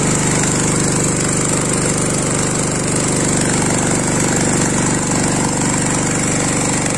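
Small portable petrol-engine water pump running steadily at a constant speed, with the rush of water gushing from its outlet pipe.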